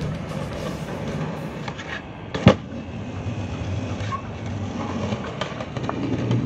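Skateboard wheels rolling over rough concrete with a steady rumble. About two and a half seconds in, the board hits the ground with one loud, sharp clack, with lighter clicks around it.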